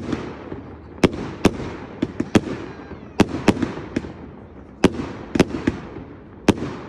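Aerial firework shells bursting: about a dozen sharp bangs at uneven intervals, some in quick pairs and triplets, over a continuous hiss.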